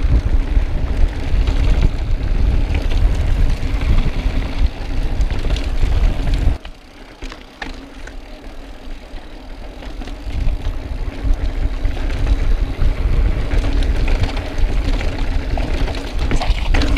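Wind buffeting a mountain biker's camera microphone as a heavy low rumble, with the bike's tyres rolling over dirt and rock and small clicks and rattles from the bike. The wind rumble drops away sharply about six and a half seconds in, then builds back over the next few seconds.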